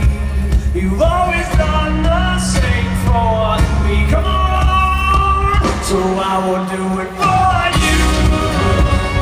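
Live pop-rock band playing with a sung melody over heavy bass and drums; the bass drops out briefly about two-thirds through.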